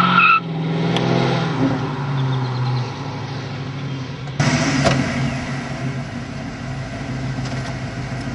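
Ford Mustang 5.0-liter V8 running as the car pulls away after a donut, a brief tire squeal dying out in the first moment and the engine note falling and fading. About four seconds in the sound cuts abruptly to the same V8 idling close by.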